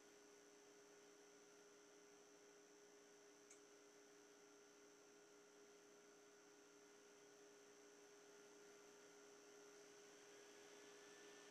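Near silence: a faint steady electrical hum with light hiss, and a single faint click about three and a half seconds in.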